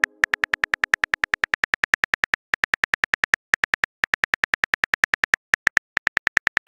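Simulated phone-keyboard typing clicks from a texting-story animation: a quick, even run of identical short high clicks, one per letter as a message is typed out, about ten a second with a few brief pauses.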